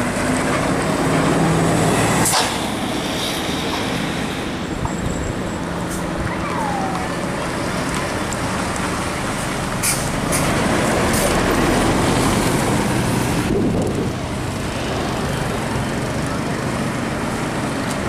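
Large diesel tour buses passing close one after another on a downhill bend, engines running with tyre and road noise. It swells as one bus goes by at the start and again, loudest, about ten seconds in as the next one passes.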